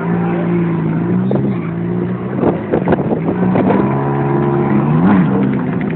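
Motorcycle engine running at a fairly steady pitch, with irregular sharp crackles around the middle and a brief rev, rising and falling, about five seconds in.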